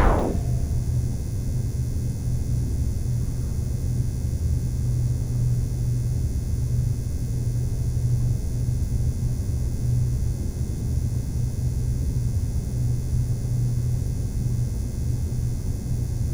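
Steady low hum, deep and unchanging, with no music over it; the music cuts off abruptly at the very start.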